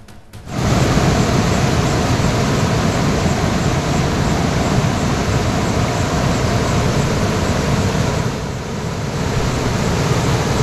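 Floodwater rushing across a submerged low-level road bridge: a loud, steady rush that starts about half a second in and eases briefly about eight seconds in.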